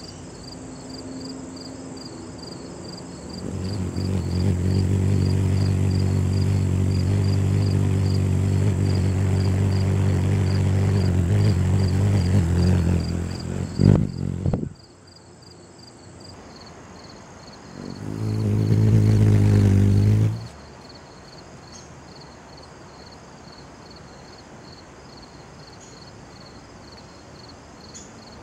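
Ruby-throated hummingbird's wings humming loudly at a steady low pitch while it hovers at a nectar feeder. The hum comes in two stretches: one of about ten seconds, ending with a brief sharp knock, and a shorter one of about two seconds.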